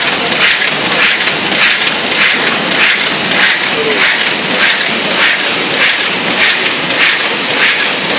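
Automatic die-cutting machine running at production speed: a loud, steady mechanical clatter and hiss with a regular stroke about twice a second as sheets are fed and cut.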